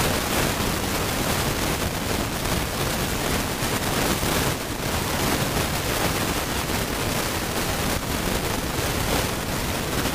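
Steady rush of wind over the microphone of a moving motorcycle, mixed with road noise, with no distinct engine note standing out.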